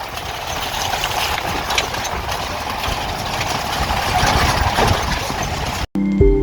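Off-road jeep's engine running with steady rattling and rumble from a ride over a rough track. It cuts off abruptly near the end, and soft sustained synth music begins.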